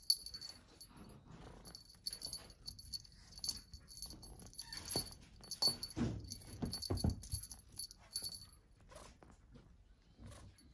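A small bell on a cat wand toy jingling on and off as a kitten bats and chews at it, with soft knocks and rustling on a fluffy blanket.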